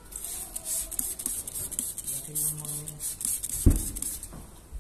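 Hand spray bottle squirting a mist of water onto a car's side window glass in quick repeated bursts, wetting the glass for window-tint film. A single loud thump comes near the end.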